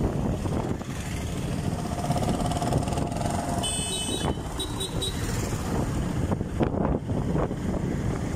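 Motorcycle engine running steadily while riding, with wind and road noise on the microphone. About halfway through, a brief high-pitched electronic tone sounds as traffic passes.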